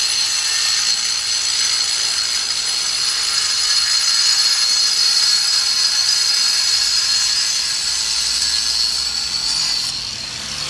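Handheld angle grinder running steadily with a high whine, its disc cutting into the plaster wall. The sound drops slightly and changes near the end.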